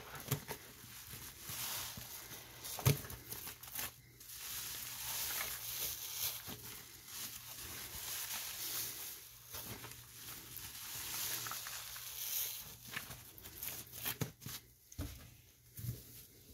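Soapy wet sponge squeezed and scrunched by hand over and over: wet squelching and crackling foam in repeated swells, with sharp little pops and clicks.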